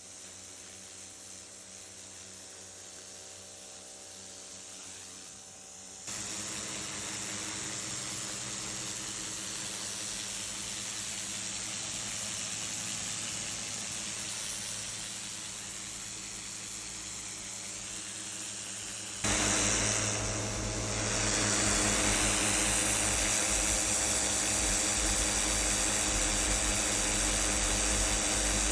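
Electric pressure washer running, its pump motor humming under the hiss of the water jet on a concrete walkway. The sound steps up abruptly about 6 s in and again about 19 s in, getting louder each time.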